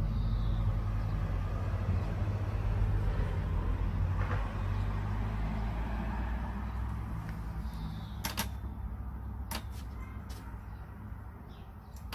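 Low rumble of a motor vehicle engine, strongest at first and fading away over the last few seconds, with a few sharp clicks about eight to ten seconds in.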